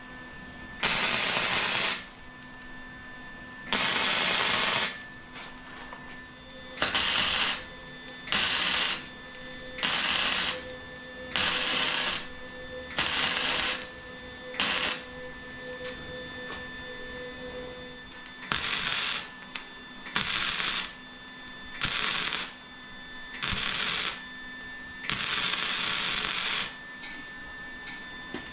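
Arc welding on a steel tubing frame: about thirteen short welds, each a second or so of steady hiss that starts and stops sharply, the last one near the end a little longer.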